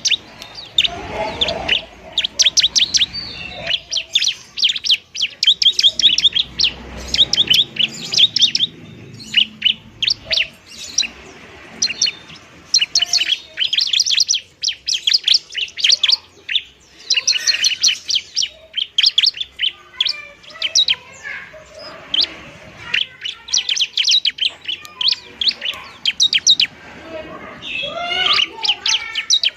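Bar-winged prinia (ciblek) singing its fighting song: rapid trains of sharp, high chirps in repeated bursts a second or two long, with short gaps between.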